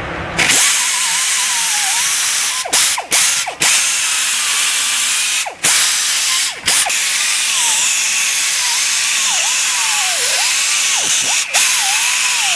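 Power tool spinning a carbide bit into a stripped, rusted brake rotor retaining screw, its pitch sagging and recovering as it bogs under load, with several brief stops.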